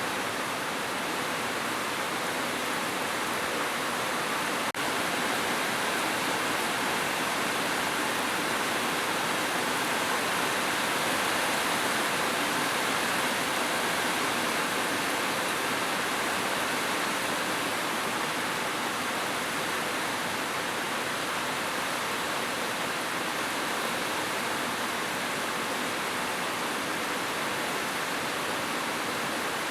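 Heavy rain falling on a roof: a steady, dense hiss of drops with no thunder, broken only by a momentary dip about five seconds in.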